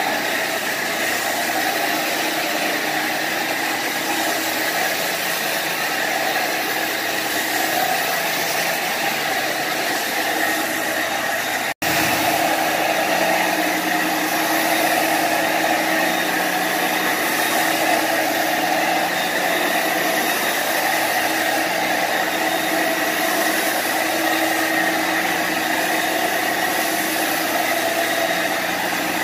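Portable carpet extractor's vacuum motor running steadily with a constant whine, cutting out for an instant a little before the middle.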